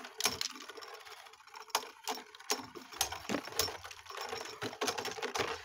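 Two Beyblade spinning tops, a Dread Bahamut and a Fafnir, whirring in a plastic stadium, with irregular clicks and knocks as they collide and scrape against each other.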